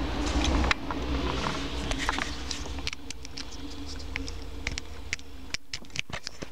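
Scattered small clicks and crackles over a low steady hum, the handling of a USB flash drive going into a cheap AUX adapter.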